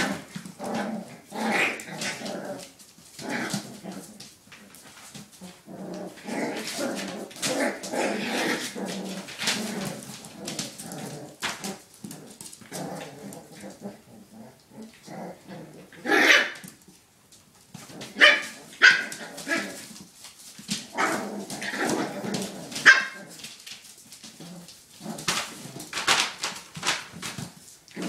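Puppies playing together, yapping and barking in irregular bursts, with the loudest barks in the second half.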